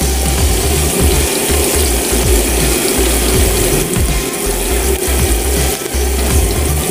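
Nest of egg noodles deep-frying in hot oil in a wok, a dense, steady crackling as the noodles are fried to a crisp, over a low rumble.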